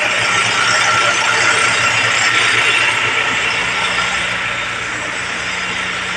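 Concrete mixer running: a steady mechanical rattle over a low engine hum.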